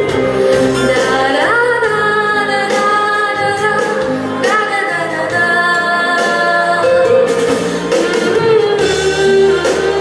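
A woman singing a slow ballad melody without words, holding long notes and sliding up into them twice, over a recorded musical backing track.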